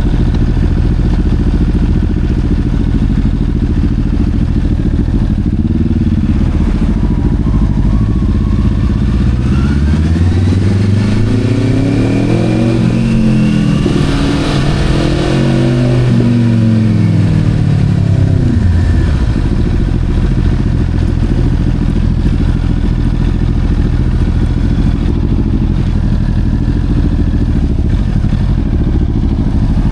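Motorcycle engine running steadily, its pitch swelling up and back down over several seconds around the middle, then starting to climb again right at the end.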